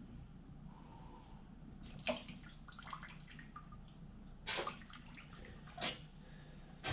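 Warm water squirted into an ear and splashing into a bathroom sink during ear irrigation, in several short bursts, the longest about halfway through.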